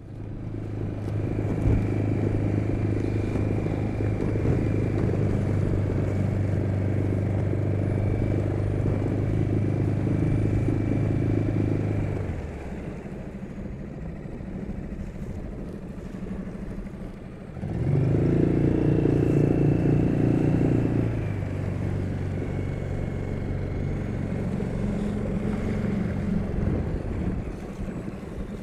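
Outboard motor on a small inflatable boat running under way. It runs steadily at speed, throttles back about halfway through, opens up again for a few seconds, then settles at a lower, steady running speed.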